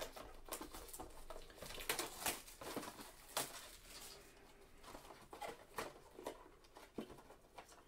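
Faint handling noise of gloved hands moving trading cards and picking up a cardboard card box: scattered light taps and rustles, with a sharper tap about three and a half seconds in.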